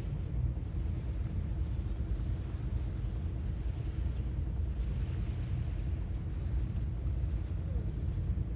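Seaside ambience: a steady low rumble with the soft wash of waves swelling and fading every couple of seconds.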